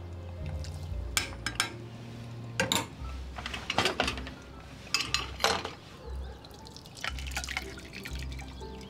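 A metal ladle clinks sharply against a stainless saucepan, about six times, as red wine sauce is scooped up and dripped back into the pot. Near the end the liquid is poured through a fine-mesh strainer into a pan.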